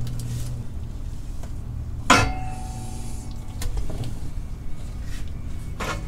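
Metal clutch parts clanking while the twin-disc clutch assembly is fitted to the flywheel: one sharp metallic clank about two seconds in that rings briefly, then lighter knocks, including one near the end, over a steady low hum.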